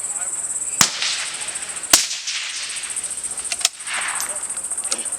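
Three suppressed centerfire rifle shots, the first about a second in and the next two roughly one and one and a half seconds apart, each a sharp crack with a short tail of echo. A steady high-pitched drone of insects runs underneath.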